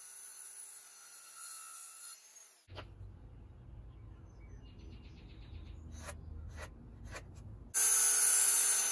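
Ryobi circular saw cutting pressure-treated pine boards for about the first two seconds. The saw then stops, leaving pencil scratching on the wood and a few sharp clicks. Near the end the saw cuts again, much louder.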